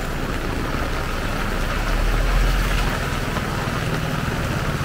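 Heavy rain falling steadily, with an SUV's engine running close by as it passes; its low rumble is loudest about halfway through.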